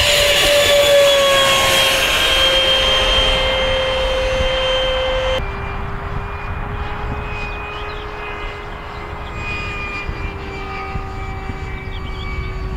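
Electric ducted fan of a model de Havilland Vampire jet (Wemotec Midifan driven by a Mega brushless motor) whining steadily as the model lifts off and climbs away. About five seconds in the sound cuts to a quieter, lower-pitched steady whine as the model flies high overhead.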